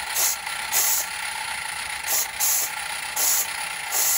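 Roundhouse Katie live-steam locomotive's steam whistle pressed several times in short, irregular blasts that come out as hisses of steam with no clear whistle note, a sign that the whistle is still partly blocked, over the steady running of the small steam engine.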